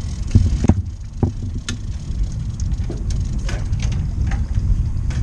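Wind buffeting the microphone in a steady low rumble, with a few sharp knocks from gear being handled on the boat in the first couple of seconds.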